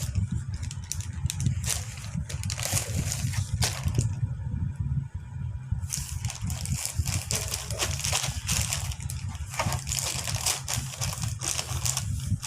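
Plastic packaging and wrapping crinkling and rustling in quick irregular bursts as a parcel is opened and unwrapped by hand, over a steady low rumble.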